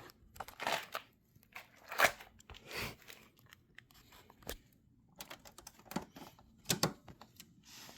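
Irregular rustling, crinkling and clicking handling noises: a string of short scrapes and taps at uneven intervals, with brief quiet gaps between them.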